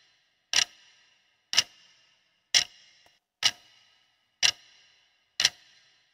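Clock-tick sound effect of a quiz countdown timer: six sharp ticks, one a second, each with a short ringing tail.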